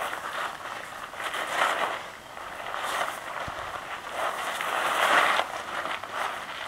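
Many feet crunching and scuffing on gravel as a group steps and shifts between stances, coming in repeated swells.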